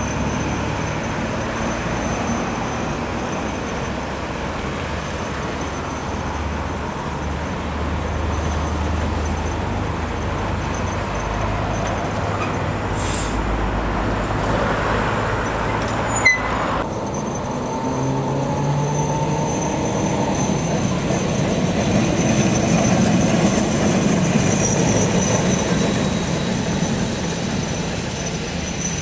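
Heritage electric tram running along the track with steady rumble and wheel noise. A sharp click comes about 16 seconds in, followed by a whine that rises in pitch as the tram gathers speed.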